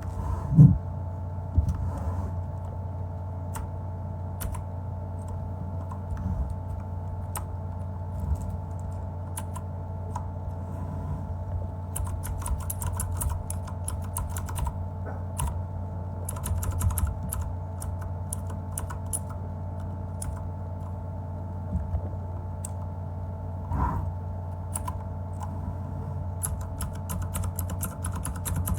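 Typing on a MageGee mechanical keyboard with clicky blue switches: sharp key clicks in uneven runs, with a low thump about half a second in. A steady low hum runs underneath.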